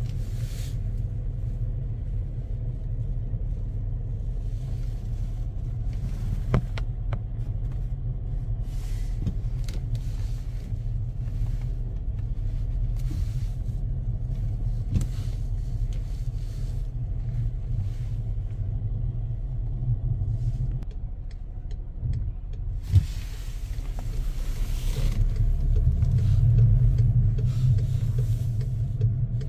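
Car driving slowly, heard as a steady low rumble of engine and tyres, with a few small clicks and knocks. The rumble dips briefly and then grows louder near the end.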